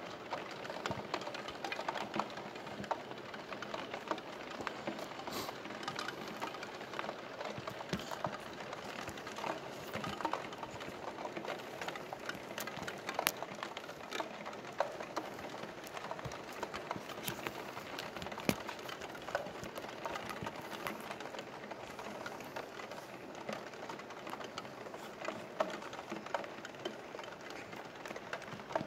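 Steady rain falling on a window, heard from inside the room: an even hiss dotted with many small separate drop ticks.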